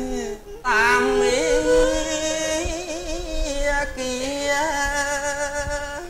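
A solo voice singing Khmer yike theatre song in long, wavering held notes that slide from pitch to pitch, with a short break for breath about half a second in.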